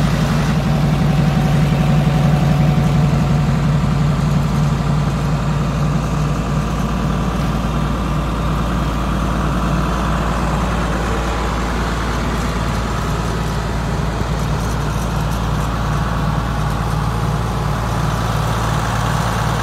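Diesel engine idling steadily, a low even hum with no revving, a little louder in the first few seconds.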